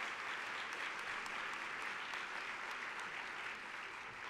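Large audience applauding steadily, the applause starting to fade near the end.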